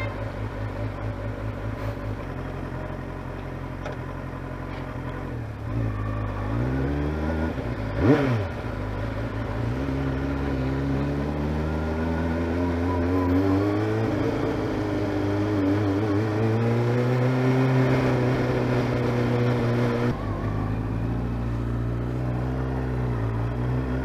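Motorcycle engine under way in traffic, its pitch climbing and dropping repeatedly as it pulls away and changes gear. A brief loud swell comes about eight seconds in.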